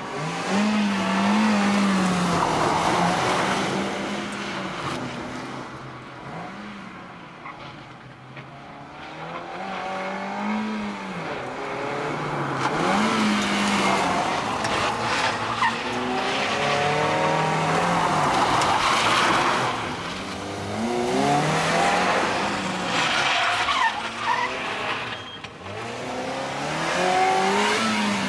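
Mazda Demio's 1.5-litre four-cylinder engine revving up and falling back again and again as the car is driven hard through tight gymkhana turns, with the tyres squealing through several of the corners.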